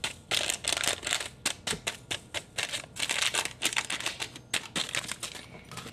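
A paper yeast packet crinkling and being tapped and shaken as the yeast is emptied into a bowl of flour. The sound is a quick, irregular run of small crackles and taps, several a second, that thins out near the end.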